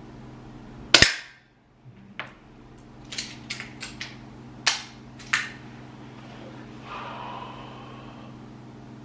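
One sharp shot from an APS air pistol about a second in, then a string of smaller sharp clicks and clacks as the pistol is handled and cocked for the next shot.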